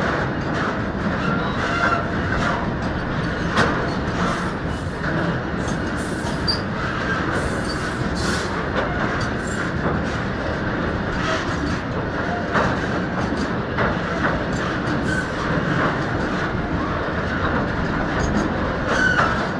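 Freight train of oil tank wagons rolling past at close range: a steady rumble of steel wheels on rail, broken by irregular knocks as the wheels clatter over rail joints.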